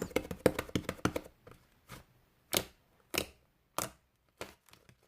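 Slime being played with by hand, giving short wet clicks and pops: a quick run for about the first second, then single pops about every half second or so, getting fainter toward the end.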